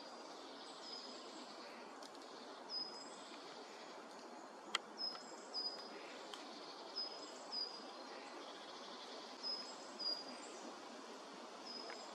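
Woodland ambience: a small bird repeats a short, high, thin call, usually twice in quick succession, every second or two over a steady background hiss. There are a couple of sharp cracks near the middle.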